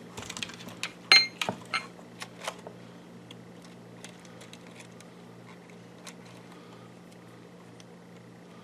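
Small clicks and taps of hands handling a car climate-control panel and the clip leads of a power supply, with a sharp click about a second in and a few lighter taps, then only faint ticks. A low steady hum runs underneath.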